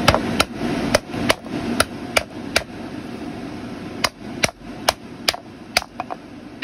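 Repeated hammer blows, about two or three a second, driving a 3-inch PVC repair coupling along a primed drain pipe. There are two runs of about seven sharp strikes each, with a pause of about a second and a half between them.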